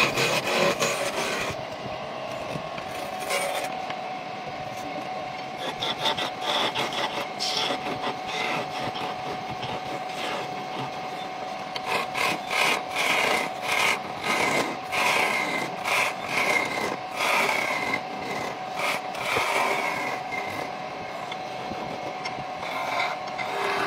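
Wood lathe turning a spindle of pale wood while a hand-held gouge and chisel cut into it: repeated scraping, rasping cuts over a steady whine. The cuts come thickest as a run of short strokes about halfway through.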